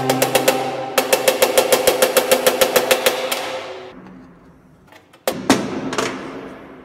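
A small hammer tapping rapidly on metal, about six light blows a second with a ringing note, fitting the pins of a straight razor's new handle on a steel bench; the tapping stops about halfway through and a few seconds later come three heavier single knocks. Background music plays underneath.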